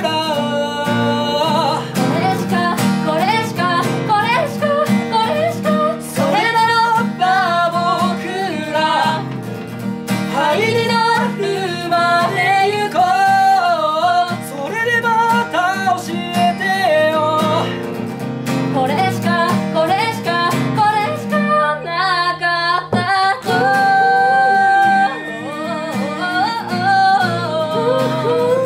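A man and a woman singing a song together to an acoustic guitar, in a live acoustic performance. About 23 s in there is a brief break, followed by a long held sung note.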